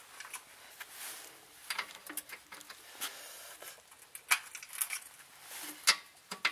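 Scattered light metallic clicks and clinks of hand tools and hardware being handled, with two sharper clinks about four and six seconds in.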